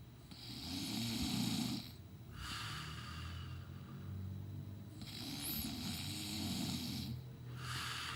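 A sleeping man snoring: two snores about four and a half seconds apart, each about a second and a half long, with softer breathing between them.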